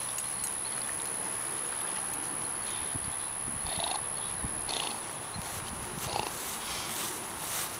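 A dog making a few short, soft sounds from about halfway through, over a steady hiss and a faint high whine.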